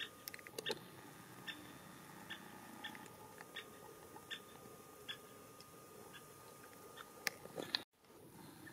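Male great spotted woodpecker giving its short, sharp 'kik' call over and over, roughly once every three-quarters of a second. A few sharper taps come near the start and again near the end, and the sound cuts out for an instant just before the end.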